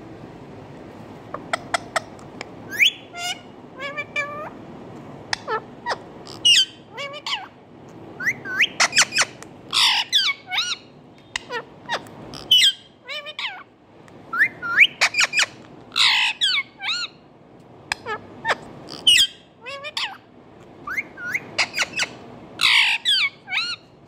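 Indian ringneck parakeet giving a long run of sharp squawks and chirps with quick swoops in pitch. It starts about a second in, with louder, drawn-out screeches every few seconds.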